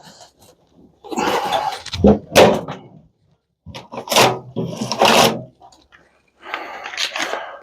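Clunks, knocks and scraping from the sheet-metal housing and parts of an old microwave oven being handled and pulled apart, with a few sharp knocks through the middle.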